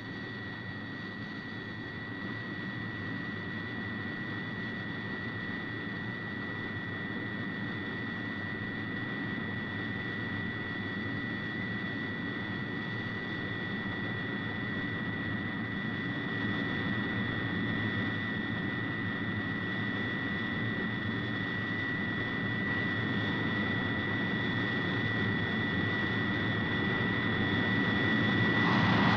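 Jet aircraft engine noise: a steady high whine over a rushing rumble, slowly growing louder and swelling into a louder rush at the very end.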